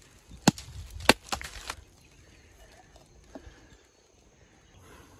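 Machete chopping into the husk of a green drinking coconut: four sharp strikes in quick succession in the first two seconds, then one faint knock a little later.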